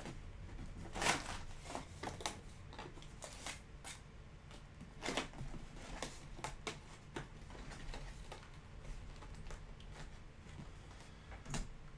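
Faint rustles and light clicks of cardboard as a 2020 Topps Allen & Ginter trading-card box's lid is opened and its packs are handled, with two louder handling knocks about a second in and about five seconds in.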